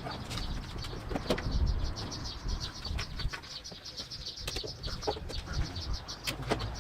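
Birds chirping in quick runs of short high notes, over a low rumble, with scattered clicks and knocks.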